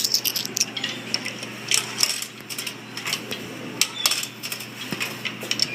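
Coins clinking and dropping as they are fed into a vending machine's coin slot: a quick, irregular run of sharp metallic clinks.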